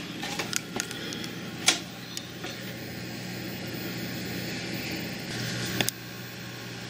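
Steady mechanical hum of a running desktop computer's cooling fans, with a few small clicks and knocks scattered through it.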